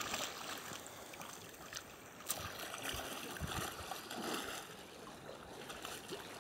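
Shallow seawater sloshing and lapping around wading legs, with a few small splashes and sharp clicks.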